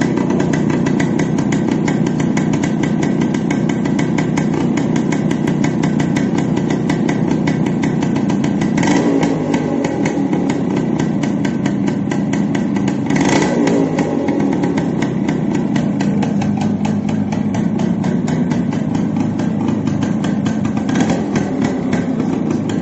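Single-cylinder two-stroke engine of a Yamaha RX motorcycle running with a fast, crackly exhaust note and a couple of brief louder bursts. The silencer is leaking at its joint where the seal has failed, which gives the exhaust an odd sound.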